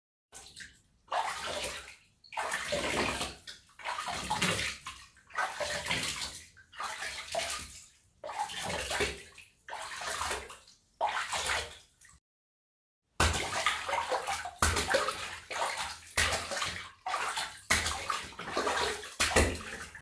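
Water splashing over and over, each splash a short rush of sloshing water, about one a second. After a brief pause about twelve seconds in, the splashes come faster and sharper.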